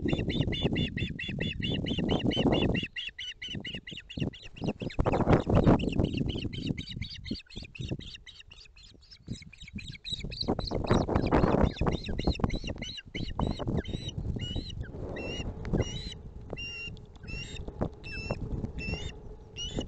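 Ospreys calling: a fast series of high, piping notes, about six a second, which gives way in the second half to slower separate chirps. This is excited calling as a second osprey lands on the nest with a fish. Under the calls are knocks and wing flaps on the nest sticks, with rain and wind noise on the microphone.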